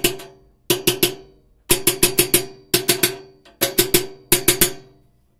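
Hammer tapping a coupling sleeve down onto a honey extractor's shaft to seat it firmly: six quick runs of three to five sharp, ringing knocks, about one run a second.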